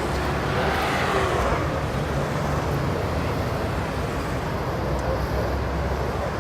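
City street traffic: a steady mix of engines and tyre noise, with one vehicle passing close about a second in and fading away.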